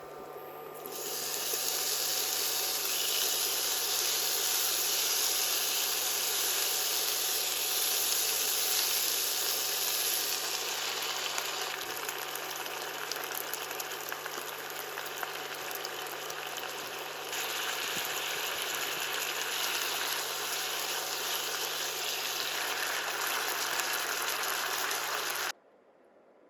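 Water running steadily from a kitchen tap, its flow changing a couple of times, then shut off suddenly near the end.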